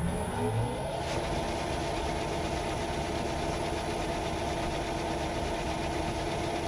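Myford lathe switched on: its motor and spindle spin up with a rising whine over the first second, then run at a steady speed with a constant hum.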